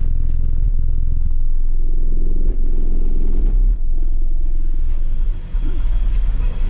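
Very loud deep bass from a car audio system of six Sundown Zv5 18-inch subwoofers, heard as a heavy rumble shifting between low notes every second or two.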